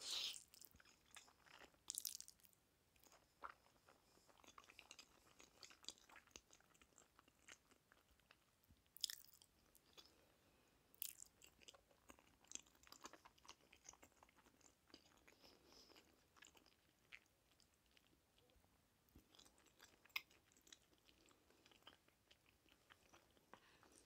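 A person chewing a mouthful of jjajangmyeon noodles close to the microphone: soft, wet mouth smacks with occasional sharp clicks. A louder burst right at the start is the noodles being drawn into the mouth.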